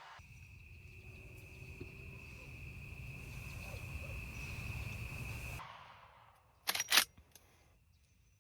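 A steady, high-pitched insect trill with a low rumble underneath, which cuts off abruptly about five and a half seconds in. About a second later come two sharp, loud clicks or knocks in quick succession, the loudest sounds here.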